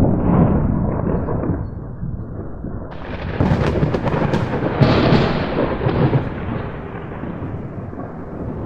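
Thunder sound effect from the GHL Mitras LX aquarium light's thunderstorm simulation. A low rolling rumble breaks into a sharp crack about three seconds in, then dies away in a long roll.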